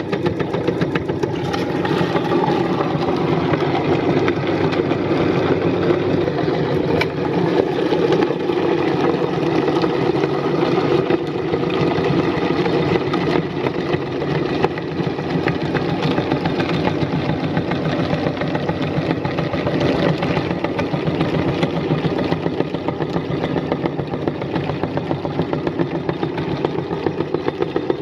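Electric meat grinder running steadily under load, grinding whole herring through its auger and cutting plate.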